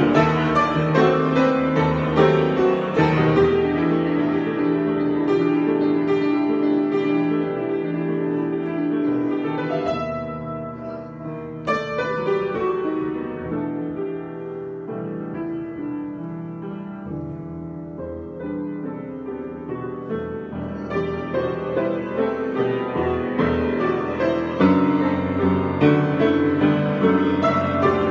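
Piano improvisation: full, dense chords that soften about ten seconds in, with a single sharper note a little later, then build back up toward the end.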